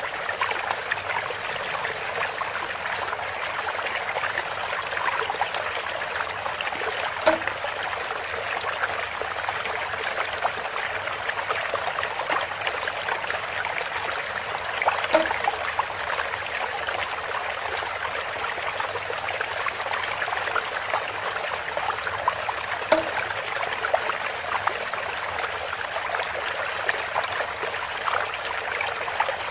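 Water trickling steadily through a bamboo spout, with a short, pitched plink about every eight seconds.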